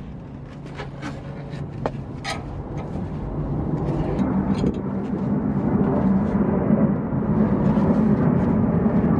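Background music fading in and rising steadily, over a few light clicks of a wrench working the brake caliper's slider pin in the first seconds.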